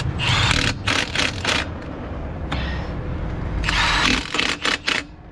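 Metal clanks and scraping from hand work on a DAF truck's rear axle hub, where the half shaft is being removed, with a steady low engine rumble underneath.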